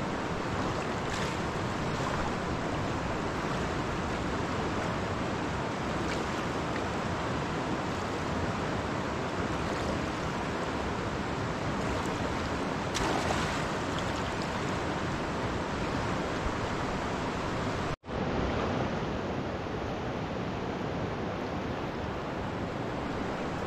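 Large, fast river rushing in a steady, even roar of water, broken once by a momentary dropout about three-quarters of the way through.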